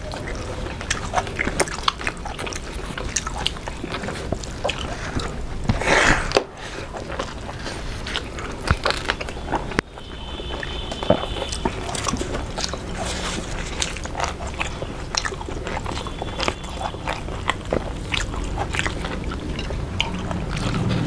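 People eating fish and rice with their hands: chewing and biting, heard as many short wet clicks, with a louder burst about six seconds in.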